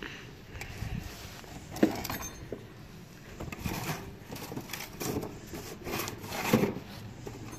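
Irregular rubbing and scraping handling noises as a small jar is closed and objects are moved about on a concrete floor, with one sharp knock a little under two seconds in.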